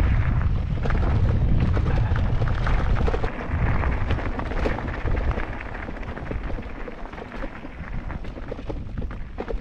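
Wind buffeting the microphone of a mountain bike's onboard camera, with the bike's tyres crunching and rattling over a rough trail; it eases off over the second half.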